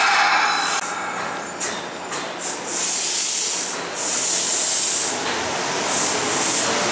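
Kintetsu red-and-white commuter train running along the platform, with a steady rumble of wheels on rail. Three or four short bursts of hiss come in the second half.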